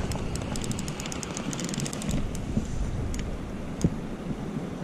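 Penn Battle II spinning reel clicking in quick, even ticks while a fish is played close in, over a steady rush of wind on the microphone. One dull knock sounds just before the end.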